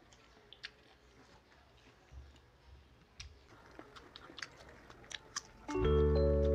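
Faint crisp crunches and mouth clicks of people biting and chewing slices of unripe Indian mango. Near the end, music with sustained chime-like tones comes in loudly.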